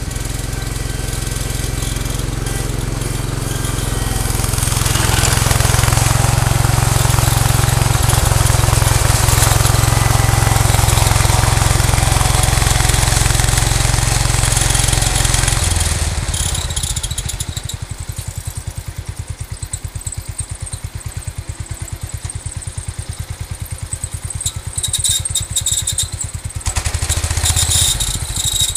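Cub Cadet 149 garden tractor's single-cylinder Kohler engine running, louder as it works, then dropping to a slow, even idle with a steady pulse about halfway through. Some higher-pitched clattering comes near the end.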